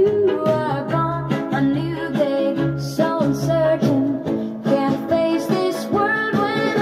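Music played through a home-built single-ended 6BQ5 (EL84) valve amplifier: a song with a singing voice over plucked guitar.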